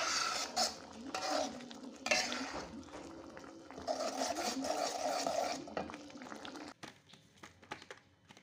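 Metal spatula stirring a thick creamy chicken mushroom sauce in an aluminium wok, scraping against the pan in four short bouts of strokes, then stopping about two seconds before the end.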